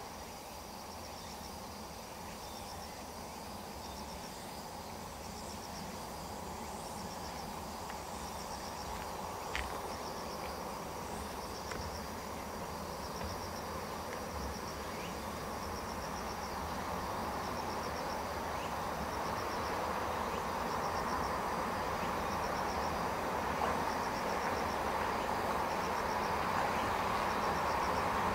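Insects chirping in short pulsed trills, repeating about once a second, over a steady low rumble that slowly grows louder as a train approaches through the tunnel.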